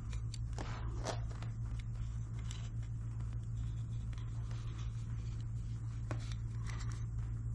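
Light clicks and scrapes of small plastic parts being handled while a rubber O-ring is worked onto a motorcycle turn signal lens, over a steady low hum.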